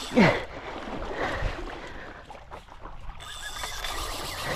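Water sloshing and lapping against a paddleboard, a steady, moderate wash. Right at the start there is a brief sound that falls steeply in pitch.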